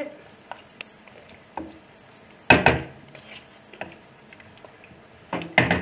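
Wooden spoon stirring ground-meat ragù in a steel pot: scattered light clicks, with two louder clusters of knocks against the pot, about two and a half seconds in and again near the end.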